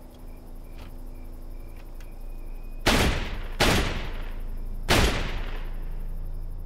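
Three gunshots, the first two close together and the third about a second later, each followed by a long echoing decay.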